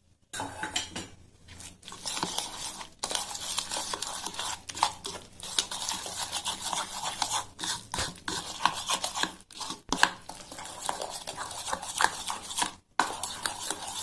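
A steel spoon stirring and scraping a thick, wet masala paste in a bowl, with the spoon clinking and rubbing against the bowl's sides. The stirring is continuous apart from a few brief breaks.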